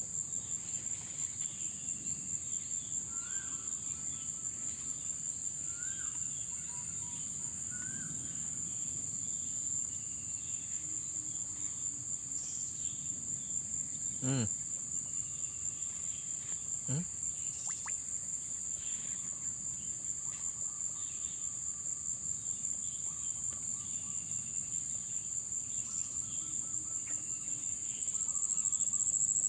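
Insects trilling steadily at a high pitch, with a few short chirps and two brief falling sounds about halfway through.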